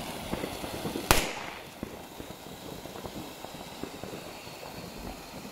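Ground fountain fireworks spraying sparks, with a steady hiss and dense crackle. One sharp bang comes about a second in and another right at the end.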